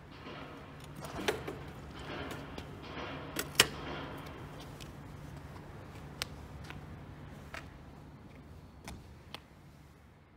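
Metallic clicks and clanks from a steel aftermarket center stand on a Suzuki Grasstracker motorcycle as it is taken off the stand and folded up. The single loudest clank comes about three and a half seconds in, with lighter knocks spread over the rest, above a steady low hum.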